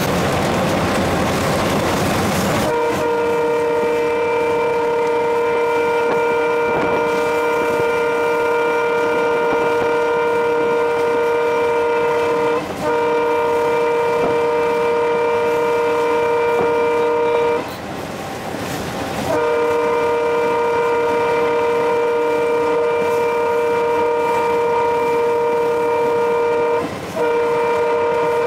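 Alco WDM3A diesel locomotive's horn, heard loud from inside its cab, starting about three seconds in and held in long steady blasts of several notes at once: one of about ten seconds, one of about five, one of about eight and a short one near the end. Beneath it runs the steady rumble of the locomotive under way.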